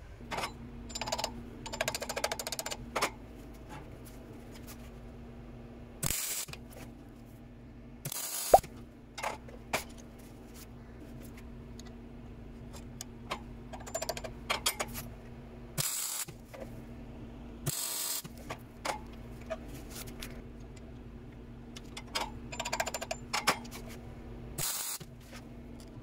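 Light metal clicks and clatter of a bolt and tools being handled at a bench vise, over a steady low hum. Several short, sharp bursts of noise stand out.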